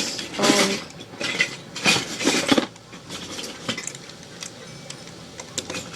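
Loose plastic Lego bricks clattering and clicking as hands rummage through a pile of pieces, with two louder bursts of rattling in the first three seconds and lighter scattered clicks after.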